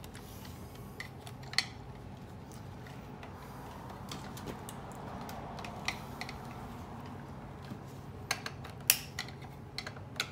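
Scattered light clicks and taps of a screwdriver and gloved hands against the plastic chassis and wiring of a partly dismantled Shark Ion RV700 robot vacuum, a few at a time and more often near the end, over a steady low hum.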